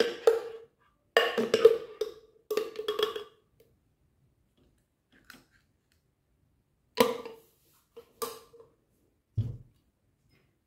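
Metal ice cream scoop scraping through frozen strawberry ice cream and clinking against a glass bowl in several short strokes, with a ringing note from the glass. A single low thump comes near the end.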